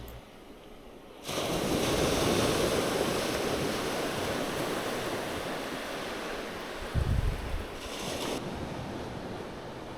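Sea surf washing on the shore: a rush of surf that swells suddenly about a second in and slowly fades away. A gust of wind buffets the microphone about seven seconds in.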